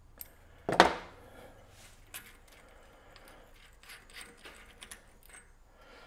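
A loud metal clank about a second in, then scattered light metallic clicks and rattles as a mountain bike's stock 10-speed cassette cogs are worked off the rear wheel's freehub after the lock ring has been loosened.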